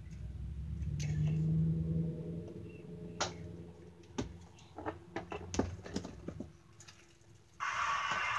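Plastic wrestling action figures being knocked against each other and the toy ring, a string of short sharp clicks and taps. A low hum comes about a second in, and a loud breathy rush of noise starts near the end.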